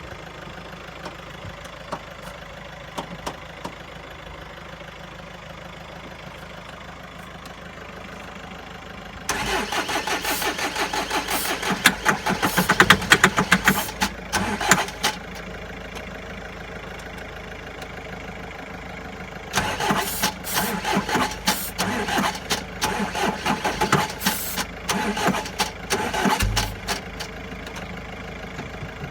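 Starter motor cranking a Mercedes-Benz Sprinter 2.2 CDi four-cylinder diesel in two long attempts of about six and seven seconds, with a rhythmic pulsing beat of the compression strokes; each attempt cuts off without the engine catching, the van's no-start fault.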